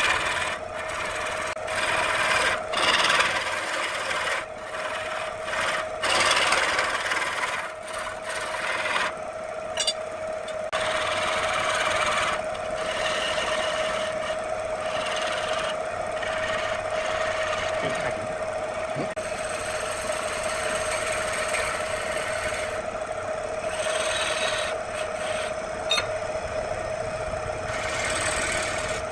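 Wood lathe running with a steady hum while a hand-held turning chisel cuts a spinning redwood vase, giving a rough scraping, rasping noise that swells and drops with each pass of the tool.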